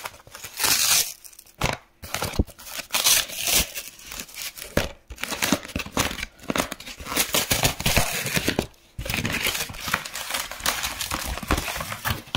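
A parcel's packaging being torn open and crumpled by hand, in irregular bursts of rustling, ripping and crinkling with a few short pauses.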